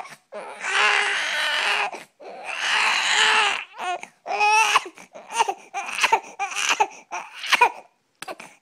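Baby crying in two long wails, then a run of short, high-pitched vocal bursts.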